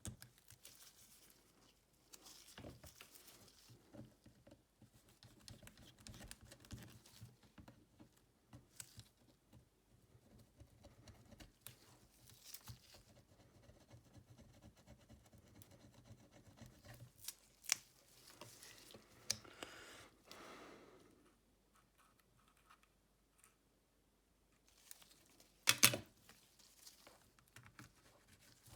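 Small clicks, scrapes and taps of hand tools and fingers working on a smartphone's casing, with a louder burst of sharp clicks near the end.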